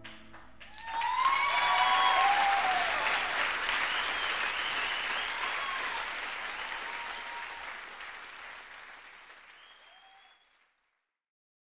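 Audience applause with scattered cheers, starting about a second in and fading out gradually until it stops shortly before the end.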